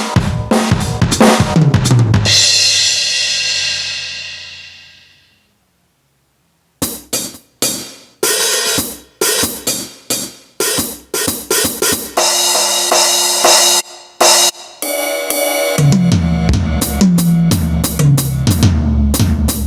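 Aroma TDX-15S electronic drum kit sounds: quick drum hits ending in a cymbal crash that rings and fades over about three seconds, a short silence, then single drum and cymbal hits one at a time. About four seconds from the end a busier beat starts with deep low tones underneath.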